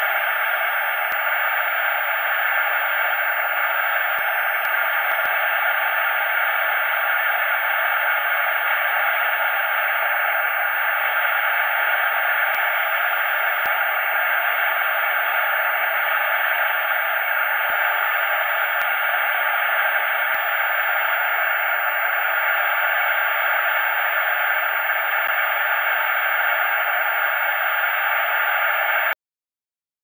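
Television static: a steady, even hiss of snow noise, mostly in the middle range, with a faint thin high-pitched whine above it. It cuts off abruptly near the end.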